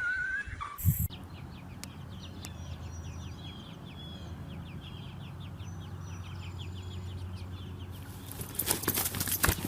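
A flock of chickens making many short, high chirps and clucks over a low steady hum. A louder rustle, like flapping wings, comes near the end.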